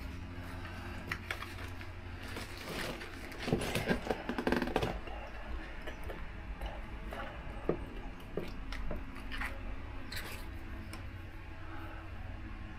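A new air filter being pushed and worked into a motorcycle airbox: plastic scraping and rubbing with small clicks and knocks, loudest a few seconds in, over a steady low hum.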